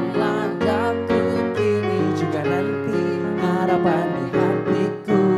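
A live pop ballad: keyboard (electric piano) chords under a man and a woman singing a duet, with long wavering held notes.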